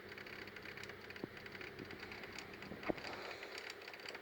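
Eachine EAT01 making a fault clicking: faint, rapid, irregular ticking, with two sharper clicks about a second and three seconds in. The clicking has only just started, and its cause is unknown to the owner.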